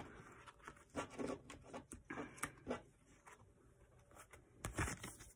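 Oracle cards being picked up off a table and handled together: soft, scattered rustles and light taps, with a louder bump near the end.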